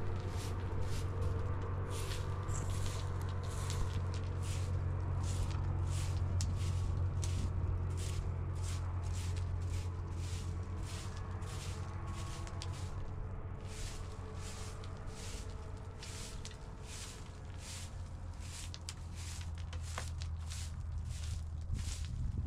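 Straw broom sweeping dry, stony dirt ground in repeated brisk strokes, about two a second, with a short pause about halfway through.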